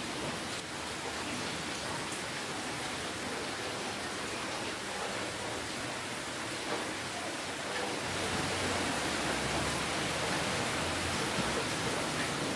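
Steady rainfall, an even hiss of many drops. A low rumble joins about eight seconds in and fades a few seconds later.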